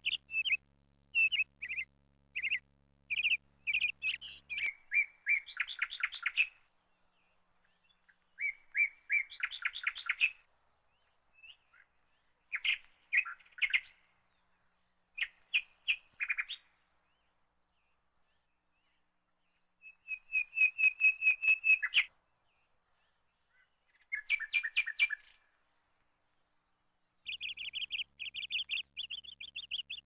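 Nestling birds giving high begging chirps in quick pulsed runs, grouped in bursts a few seconds apart with short silences between; the loudest run comes a little past the middle.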